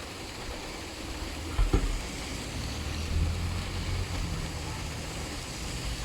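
Steady rain hissing, with a low engine hum underneath that comes in about a second and a half in, and a single knock just after.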